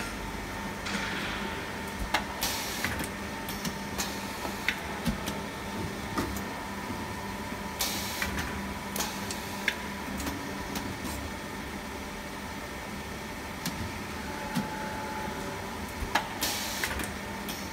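Injection molding machine running with a steady hum, while a pneumatic take-out robot arm cycles into and out of the mould: sharp clicks and knocks, with three short bursts of air hiss.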